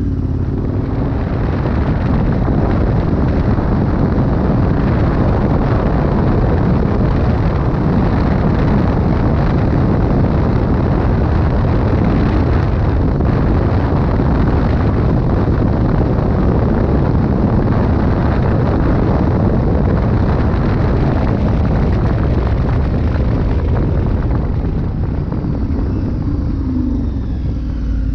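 KTM 1290 Super Adventure R's V-twin engine pulling the motorcycle up to highway speed, with heavy wind rushing over the handlebar-mounted microphone. The engine eases off and the wind dies down near the end as the bike slows for a junction.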